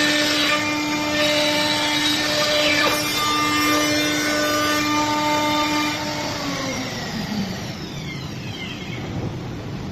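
Spindles of a four-head CNC wood router whining at a steady high pitch over the hiss of cutting wood; about six seconds in the whine slides down and fades, leaving a quieter hiss with faint sliding tones.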